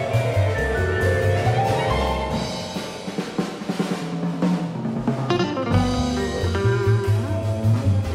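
Live performance of a concerto for guitar, string orchestra and percussion: strings over a stepping bass line, with the drum kit coming forward in a quieter passage in the middle before the full ensemble returns.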